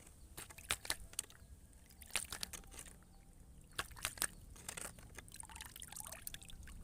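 Water trickling and dripping, with scattered, irregular sharp clicks and splashes.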